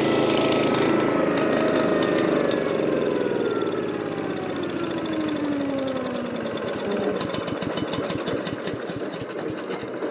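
Sand-collecting lawn machine with its motor and turbine wheel running down: the pitch falls steadily over several seconds and the sound fades, while a fast clicking rattle comes from the machine as it is pushed across the grass.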